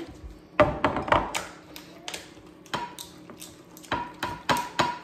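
Spoon stirring softened garlic butter in a glass mixing bowl, knocking and scraping against the glass in a dozen or so irregular clicks and taps as the butter is worked smooth and creamy.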